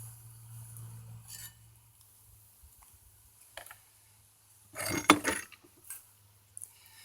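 Metal clinking and clattering as steel tools and the hoe head are handled and set down: a few light clicks, then a short, loud clatter about five seconds in. A low hum runs through the first second or so.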